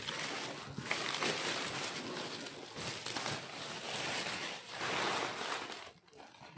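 Thin black plastic bag rustling and crinkling as it is pulled off a cardboard box and bunched up, in several surges of a second or two.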